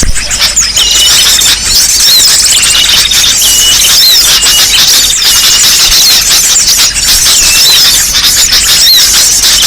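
A noisy crowd of many small birds chirping and twittering at once, with rapid short chirps and quick rising-and-falling whistled notes overlapping without pause. It is a loud bird-lure (pikat) recording, made to draw small birds in for trapping.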